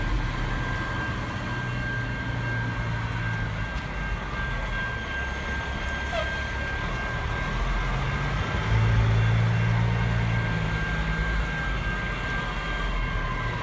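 Diesel engine of a Peterbilt semi truck running at low speed as it creeps up a narrow street, its low hum swelling about nine seconds in. A steady high whine runs underneath.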